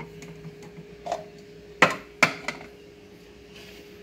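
A few sharp knocks and clacks of hard objects being set back in a kitchen cupboard, the loudest just under two seconds in with another close after, over a faint steady hum.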